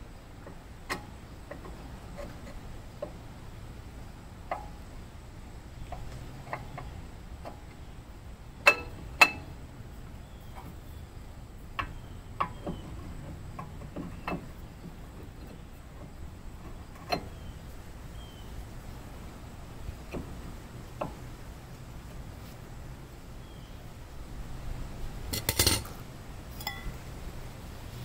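Scattered metallic clinks and knocks from hand work on a pickup's front brake and hub: two sharp clinks about nine seconds in, lighter taps here and there, and a quick run of clinks near the end.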